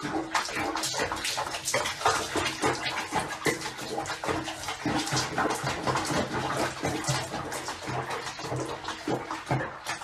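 Soapy bathwater sloshing and splashing in a small plastic tub as a cat moves about in it.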